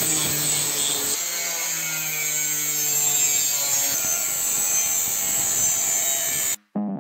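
DCA ASM15-100B 720 W angle grinder cutting through square steel tube: a steady grinding noise over a motor whine whose pitch drops at times. It cuts off suddenly near the end.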